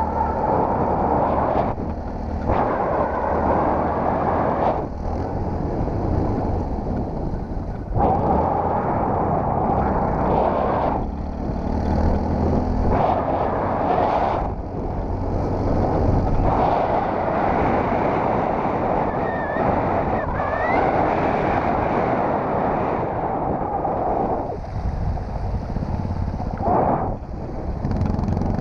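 Yamaha WR-X motorcycle's single-cylinder engine running under way over dirt and gravel, heard through heavy wind noise on an on-board camera microphone. The sound dips briefly every few seconds as the throttle eases and picks up again.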